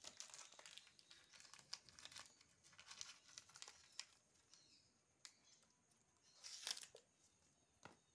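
Faint crinkling and rustling of a small plastic packet tied to a string as kittens bat, bite and drag it across a concrete floor, in a run of short rustles with a louder burst about six and a half seconds in.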